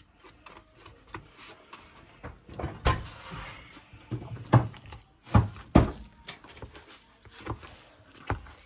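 Pots and utensils being handled: a few scattered knocks and clunks, the loudest about three seconds in and again around five and a half to six seconds in.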